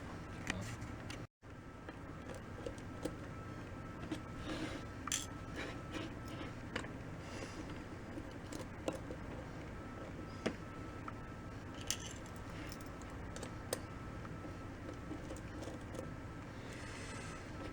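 Scattered light clicks and small rattles of a disassembled Canon EF-S 18-200mm zoom lens's parts and small tools being handled, a click every second or two over a faint steady hum.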